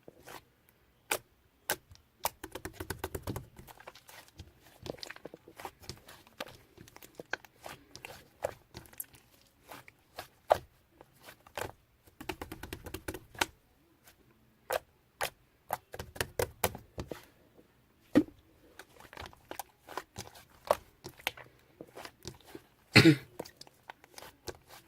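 Irregular sharp clicks and taps in quick clusters, with a few stretches of dense scratchy tapping and one louder knock near the end.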